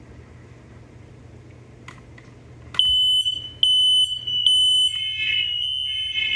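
Hardwired interconnected household smoke alarms sounding during a test. After two faint clicks, a loud, shrill alarm tone starts about three seconds in, sounding in short on-off beeps; a second or two later more alarms at slightly different pitches join and overlap, a sign that the interconnection is working.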